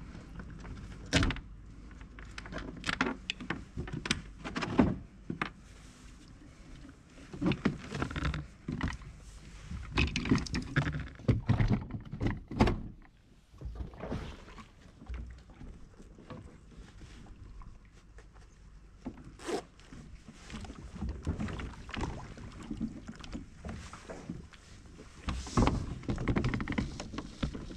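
Irregular knocks and thunks of a fishing kayak and its gear being handled at a plastic modular floating dock as a person climbs aboard, the hull bumping against the dock. The knocks come in clusters, with a quieter stretch midway.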